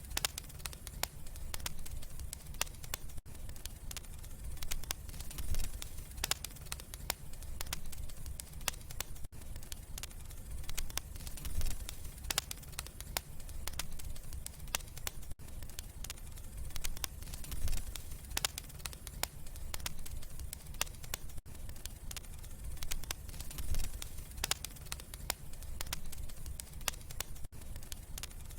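Wood fire burning in a fireplace: steady low rumble of the flames with many small, irregular crackles and pops.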